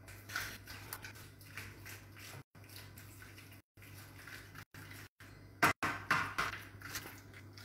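A spoon scooping sauced penne out of a steel pot and dropping it into a baking tray: soft scrapes and taps, with a few sharper knocks about six seconds in. A low steady hum runs underneath, and the sound cuts out briefly a few times.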